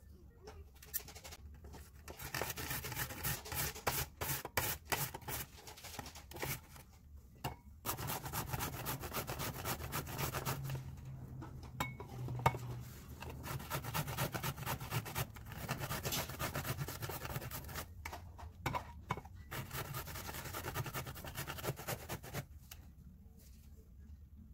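Zucchini being grated on a Sunkist box grater's metal face: rapid rasping strokes in runs of several seconds with short pauses between them, stopping near the end.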